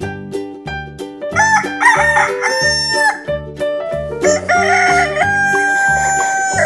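Rooster crowing twice, the second crow long and drawn out, over upbeat children's background music with a steady beat.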